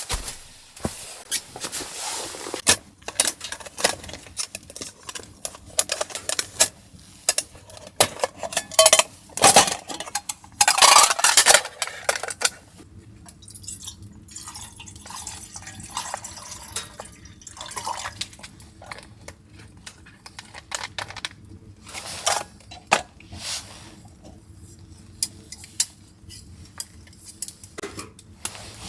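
Metal cookware and utensils being handled: repeated clinks, knocks and scrapes, with a louder rough scraping stretch about ten to twelve seconds in.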